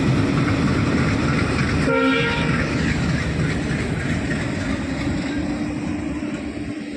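Passenger train coaches rolling past on the next track, wheels clattering steadily over the rail joints, with a short horn blast about two seconds in; the rumble slowly fades toward the end.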